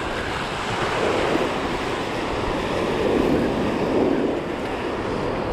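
Small surf waves breaking and washing up the sand, with wind buffeting the microphone. The wash swells a little about a second in and again around three to four seconds in.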